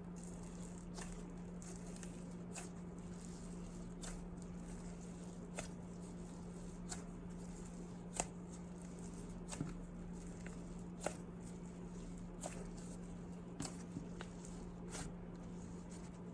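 Fluffy icy slime full of instant snow being pressed and played with by hand, giving sharp little pops about once every second and a half, over a steady low hum.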